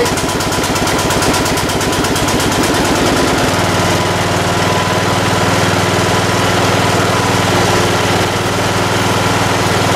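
Riding lawn mower engine running just after catching from a hard start. About three and a half seconds in, its rapid pulsing settles into a steadier hum.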